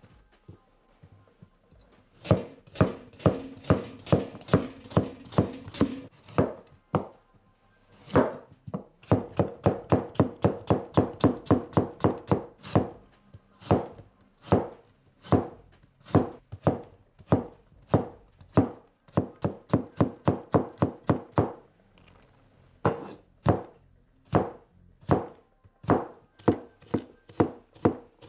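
A 270 mm carbon-steel gyuto knife chopping carrots on a wooden cutting board: runs of quick, even knife strikes, about three to four a second, broken by short pauses.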